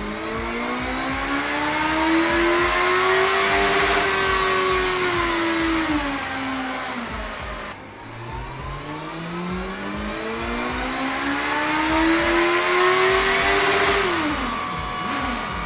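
Honda CBR 650F's 649 cc inline-four engine run up on a dynamometer in two long pulls: each time the engine note climbs steadily through the revs. The first pull eases off about halfway, and the second ends with a sharp drop near the end. These are the power and torque measurement runs.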